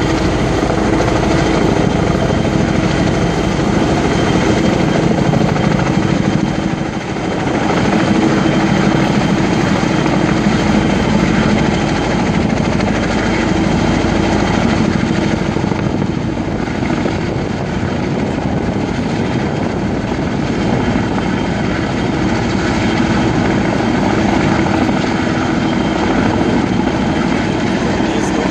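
Boeing Vertol CH-46-type tandem-rotor helicopter hovering with a load slung on a long line, its rotor and turbine noise loud and steady, with a brief dip about seven seconds in.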